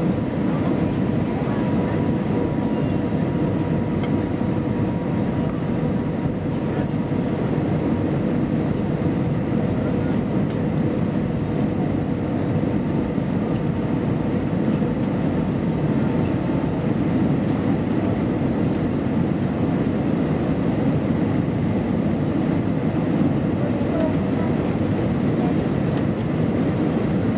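Steady cabin noise inside an Airbus A320-233 on approach: its IAE V2500 engines and the airflow make an even roar, strongest in the low range. A faint steady hum rides on it and fades out about halfway through.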